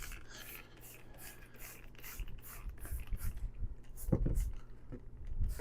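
Cleaning a vinyl case with a spray cleaner: a run of short hissy strokes, about three a second, then a low thump about four seconds in.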